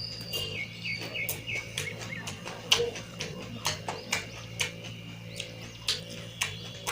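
Close-up eating sounds of mutton curry and rice: irregular wet mouth clicks and smacks while chewing. A bird chirps in the first two seconds, over a steady low hum.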